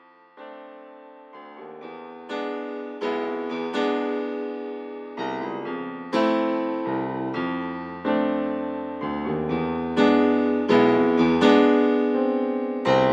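Background piano music: a melody of struck notes that ring and die away, swelling in loudness over the first few seconds.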